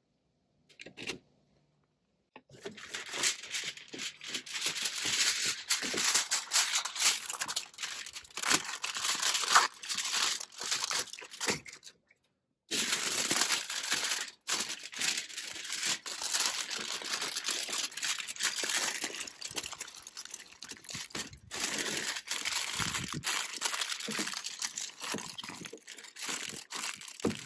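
Aluminum foil crinkling and crackling as it is folded and crimped by hand into a packet, a dense, irregular run of crackles that starts after a couple of seconds and breaks off briefly about twelve seconds in.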